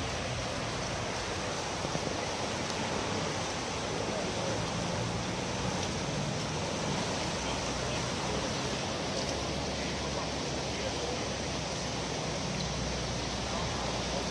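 Floodwater of a swollen river rushing fast, a steady, even rush of water with no breaks.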